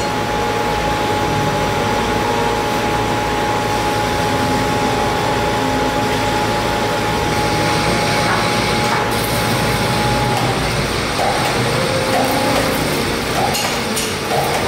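Metal lathe running during machining, a steady mechanical noise with a whine that stops about ten and a half seconds in.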